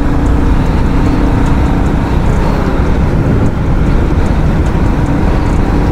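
Royal Enfield Classic 350's single-cylinder engine running steadily at road speed, heard from the moving bike with heavy wind and road rumble on the microphone.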